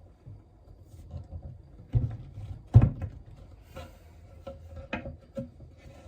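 A few knocks and clunks of things being handled and set down, the loudest about three seconds in.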